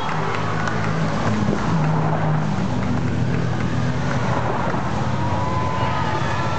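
Motorcycles and a car passing close by, a low engine hum that shifts in pitch.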